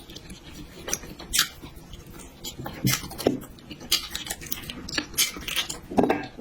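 Close-miked chewing of food: irregular wet mouth clicks and smacks, several a second, with louder ones about halfway and near the end.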